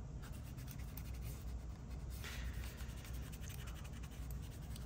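Alcohol wipe rubbing and scrubbing across the plastic underside of a Razer Viper Ultimate mouse, cleaning off old gunk where the Teflon feet were peeled away. There is a louder swipe about two seconds in.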